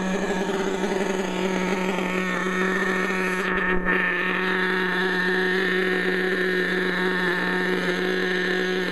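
Small nitro engine of an HPI Savage radio-controlled monster truck idling steadily at an even pitch. There is a brief bump about four seconds in.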